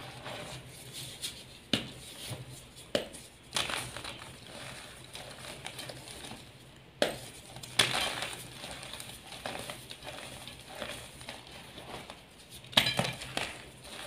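Dyed gym chalk crushed and crumbled by hand in a heap of loose chalk powder: soft, dry crunching and squishing of the powder, broken by several sharp cracks as chunks snap apart, the loudest near the end.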